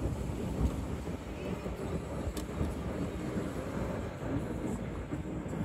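Steady low rumble of a car driving, heard from inside the car: tyre and engine noise, with a faint click about two and a half seconds in.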